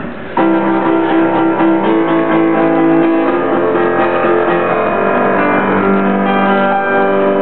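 Grand piano played solo: a chord struck about half a second in, then slow chords and single notes left ringing over one another.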